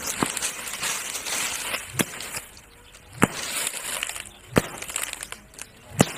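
A long stick beaten down into grass and brush: five sharp whacks about a second and a half apart, with rustling of grass and leaves between the strikes.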